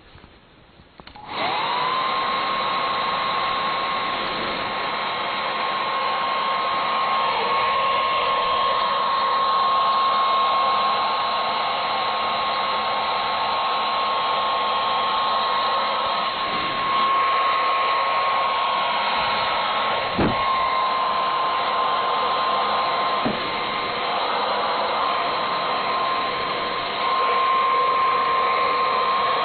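Hair dryer switched on about a second in, then running steadily with a high whine over the rush of air. The whine dips briefly a couple of times later on.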